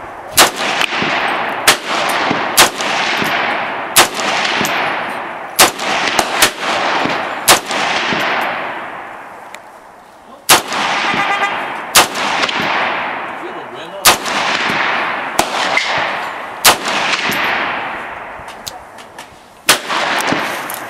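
DPMS AP4 .308 semi-automatic rifle with a muzzle compensator fired in a steady string of single shots, about one every second or so, each crack followed by a long rolling echo. A short pause comes about halfway through before the firing resumes.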